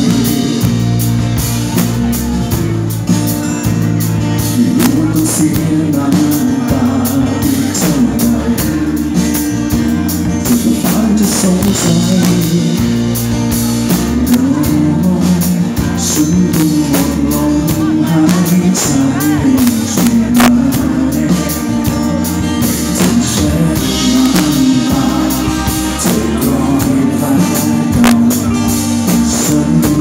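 Live rock band playing: acoustic and electric guitars over a drum kit with cymbals, with a sung lead vocal.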